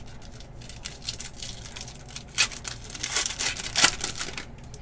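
Foil wrapper of a football trading card pack being torn open by hand, crinkling, with several sharp rips that are loudest a little past the middle.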